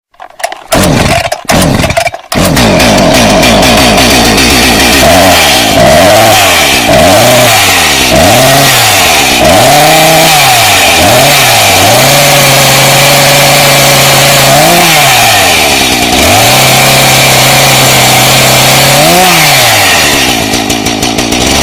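A small engine sputters a few times, catches about two seconds in, then runs loud, revving up and down over and over, with stretches held at a steady higher speed between revs.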